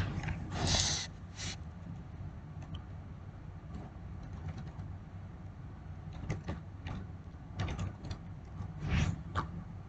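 Computer keyboard keys clicking in scattered, irregular strokes over a steady low electrical hum, with one louder brief rustle about a second in.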